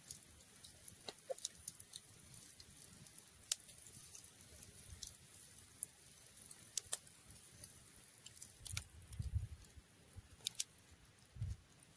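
Faint scattered clicks and taps, with a few soft low thumps about nine seconds in and again near the end.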